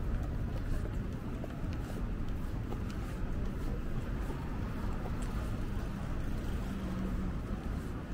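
Urban street ambience: a steady low rumble of distant traffic, with a few faint ticks.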